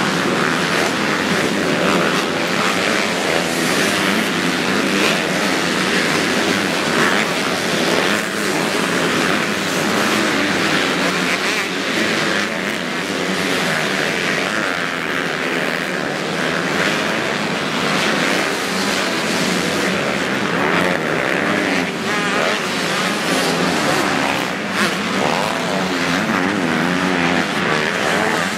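Motocross bike engines revving hard, their pitch rising and falling without a break as riders race the track and take the jumps, with more than one bike heard at once.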